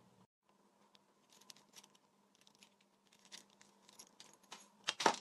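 Small metal keyring rings and acrylic charms clicking and scratching against each other as fingers handle them, a string of light irregular clicks with the loudest couple near the end.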